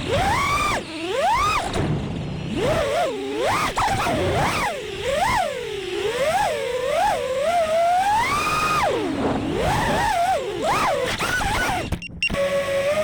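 Brushless motors and propellers of a 5-inch FPV freestyle quadcopter whining, the pitch sweeping rapidly up and down with throttle. The sound cuts out briefly near the end, then settles into a steadier whine.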